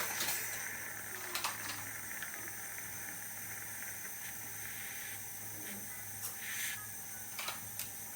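Dental suction hissing steadily with a faint high whine, and a few light clicks of metal instruments against the tooth.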